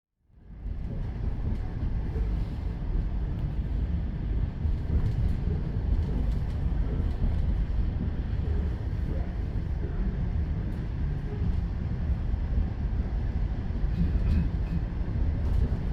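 Train wheels running on the rails: a steady low rumble that fades up from silence in the first second.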